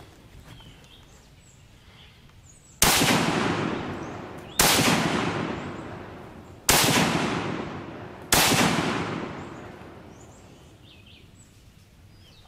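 Four shots from a Walther Gewehr 41 semi-automatic rifle in 7.92×57mm Mauser, fired at an uneven pace roughly two seconds apart. Each crack is followed by a long echo dying away.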